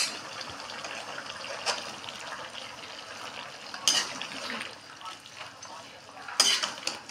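Pieces of beef heart and kidney sizzling and bubbling in their own released liquid in a metal kadai while being stirred with a metal spatula. Sharp clinks of the spatula on the pan come about 4 and 6.5 seconds in.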